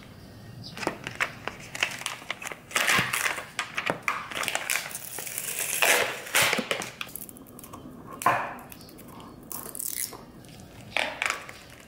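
Plastic vacuum-seal packaging of a salmon fillet being peeled apart and pulled open, with repeated crinkling and tearing of the film, followed by a couple of sharper knocks.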